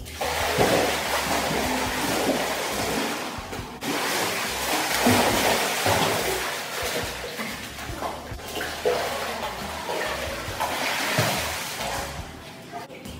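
Water splashing and churning as a swimmer does front crawl in a tiled indoor pool, arms slapping the surface and feet kicking, dying down near the end. Music plays underneath.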